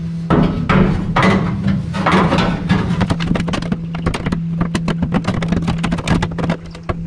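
MIG welder tack-welding a sheet-steel firewall panel: an irregular crackling arc in uneven bursts, turning to a dense rapid crackle after about three seconds, over a steady low hum.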